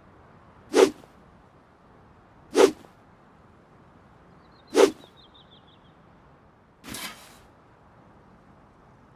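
Handmade longsword swung through the air: three quick whooshes about two seconds apart, then a fourth longer, softer whoosh.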